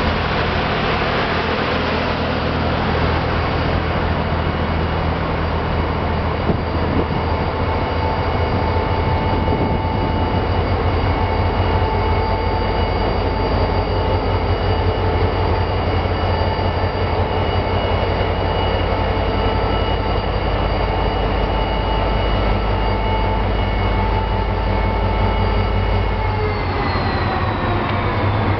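Irish Rail 071-class diesel locomotive's EMD two-stroke V12 engine running as the locomotive passes close by at slow speed, a deep throb under steady whining tones, with the train rumbling on the rails. Near the end the engine's tones slide down in pitch.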